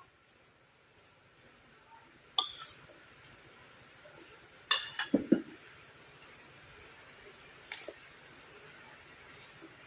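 Cutlery clinking against a bowl of meatball soup during eating: a single clink about two seconds in, a quick cluster of three or four clinks around five seconds in, and one more near eight seconds, over a faint steady high hiss.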